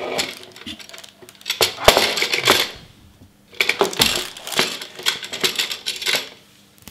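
Hard plastic parts of a SunSun HW-602B canister filter clattering and knocking as hands rummage inside the canister and pull out the foam sponge media, in three bursts of rattling, the last and longest near the end.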